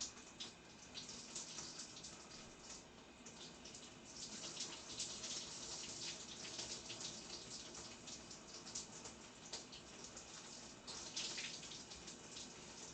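Shower running: water spray spattering steadily, a little louder for a few seconds from about four seconds in.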